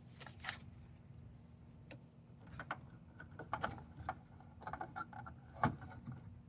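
Scattered small clicks and taps from hands handling computer hardware during a RAM upgrade, over a faint steady hum.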